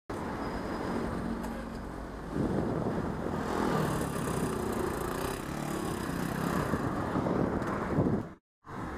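Road traffic heard from a moving bicycle: engines of cars and a scooter over steady road and wind noise. It gets louder about two seconds in and drops out for a moment near the end.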